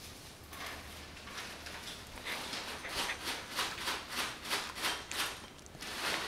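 American Eskimo puppy chewing on a cotton rope tug toy: a run of short, noisy chewing sounds about three a second, starting about two seconds in.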